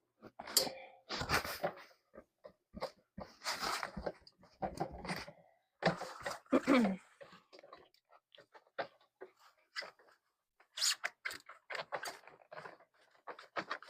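Intermittent rustling, scraping and knocking as the foam-covered leg poles of an animatronic Halloween prop are handled and pushed into place.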